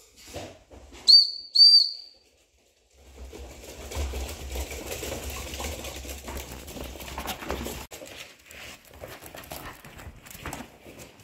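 Two short, high whistle notes, followed by Polish Hunting Dog puppies' paws scrambling and pattering over a laminate floor as the litter runs up, then thinner scuffling as they play.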